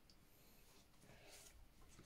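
Near silence, with the faint scratching of a pen drawing on paper.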